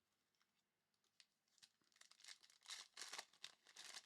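Foil wrapper of a trading-card pack being torn open and crinkled: a run of faint tearing and rustling strokes that grows busier over the last two seconds.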